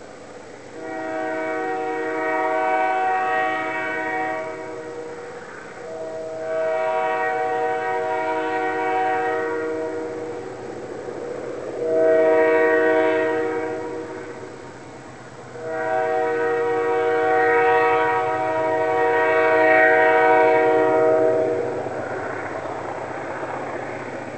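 Air horn of a diesel freight train's lead locomotive, RS 66, sounding the level-crossing signal: two long blasts, a short one, then a final long one, each a chord of several notes. A fainter rumble of the train follows the last blast.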